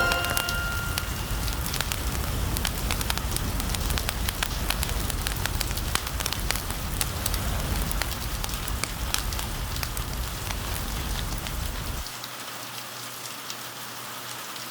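Steady rain mixed with the sharp crackle and pop of a fireplace. A deep low rumbling layer cuts out about twelve seconds in, leaving the rain and crackles quieter.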